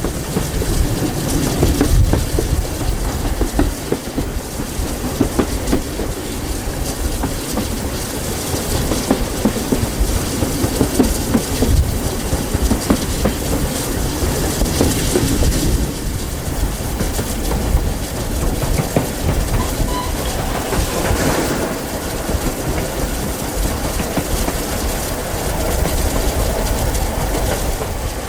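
A train running on the rails: a steady rumble with the wheels clicking and clacking over the rail joints.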